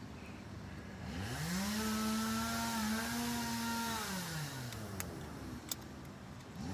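A small motor spins up about a second in, runs at a steady speed for about three seconds, then winds down; it spins up again near the end. Two sharp clicks come about five and a half seconds in.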